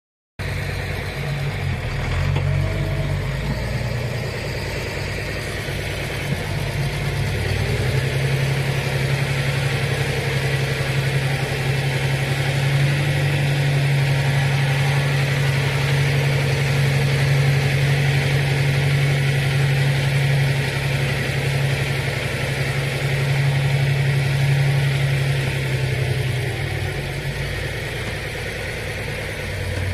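Farm tractor's diesel engine running steadily under load while pulling a forest plough through the soil. The engine note wavers during the first several seconds, then holds steady.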